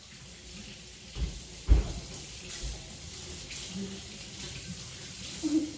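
Kitchen tap running into a sink, a steady hiss, after two dull thumps about a second and a half in.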